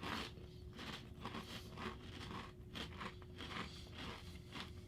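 Faint rustling and scraping of potato chip bags being handled, a string of soft, irregular short scrapes over a faint steady hum.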